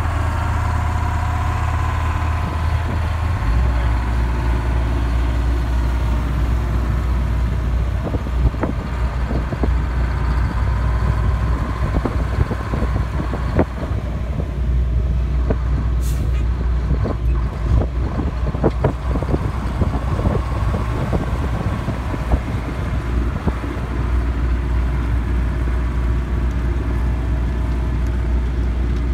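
Heavy diesel earthmoving machinery running: a loader's engine and a loaded 1949 Euclid rock truck pulling away, a steady low engine drone with scattered clanks and rattles through the middle.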